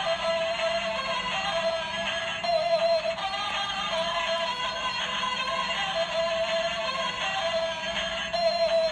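Built-in electronic tune from a pink three-wheeled kids' scooter, playing a simple synthesized melody with little bass.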